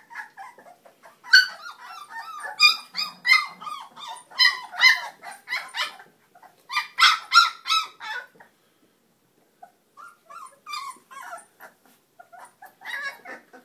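A litter of three-week-old Cane Corso mix puppies yelping and whining: many short, high-pitched calls in quick succession, a pause of about two seconds some eight seconds in, then more calls near the end.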